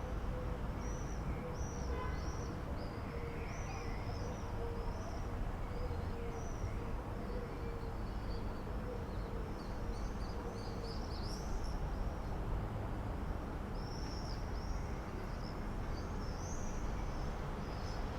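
Songbirds singing outdoors, with many short high chirps throughout over a steady low background rumble.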